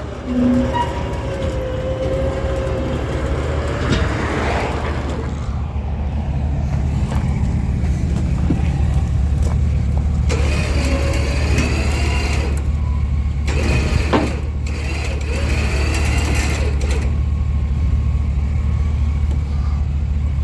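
Engine running steadily with a low hum, with a thin whine that wavers up and down in pitch at times and a few short knocks.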